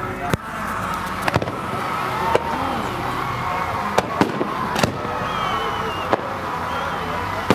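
Aerial fireworks going off in the night sky: a series of sharp bangs, roughly one a second, with several close together near the middle.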